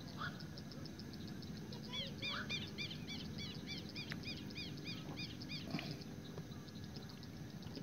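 Outdoor animal calls at dusk: a steady run of rapid, high, short ticking calls, joined from about two seconds in by a series of repeated chirps, about five or six a second, that stop at about five and a half seconds, over a faint low rumble.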